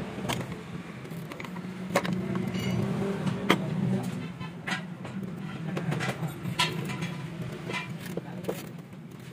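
Sharp clicks and knocks every second or so from a hand tool and a spring hose clamp being worked on rubber coolant hoses in a car's engine bay, over a steady low hum.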